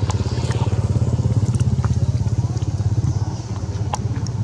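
A small engine running steadily nearby, giving a low, rapidly pulsing drone, with a few faint clicks over it.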